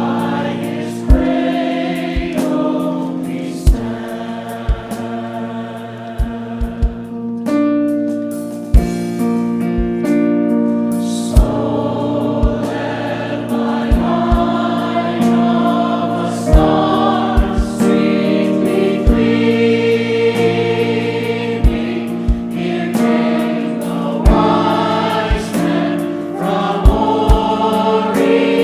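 A church choir singing held chords with accompaniment. Sharp clicks cut through it every second or two and are the loudest peaks.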